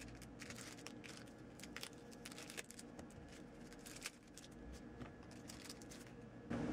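Faint rustling and light clicking from handling a Cardsharp wallet knife and its paper and plastic packaging. Near the end a louder steady noise starts suddenly.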